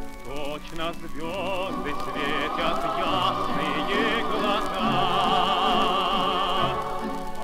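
Old Soviet gramophone record playing a song: voices singing with strong vibrato over a choir and orchestra.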